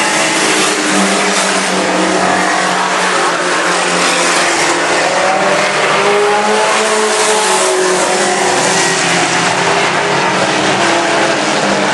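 Mini truck race engines running hard as a pack of trucks laps the track, a continuous engine drone whose pitch drifts up and down as they pass.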